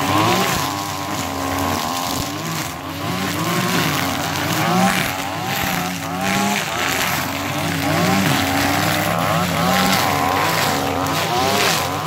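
Two backpack brush cutters with two-stroke engines, a Stihl FR 480 and a Kawasaki TJ53-powered machine, cutting through dense brambles and thorny brush with 4 mm nylon line. The two engines keep rising and falling in pitch as the line bites into the growth and frees up again.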